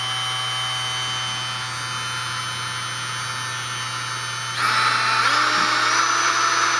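Black & Decker RTX three-speed rotary tool running unloaded in the hand at its low speed of 12,000 RPM, a steady, fairly quiet whine. About four and a half seconds in it gets louder and its pitch climbs, then holds, as it is switched up to medium speed (24,000 RPM).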